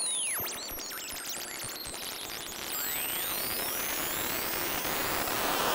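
A homemade breadboard 'New Unusual Oscillator' circuit, heard through a small synth amplifier, making high-pitched electronic whistles. A falling whistle gives way to a rapid high warble, and about three seconds in a piercing tone drops and then slowly rises over a growing hiss.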